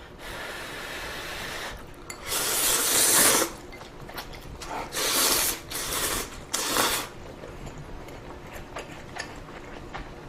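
A person slurping ramen noodles: four loud rough slurps, the longest lasting over a second, with quieter mouth sounds between them.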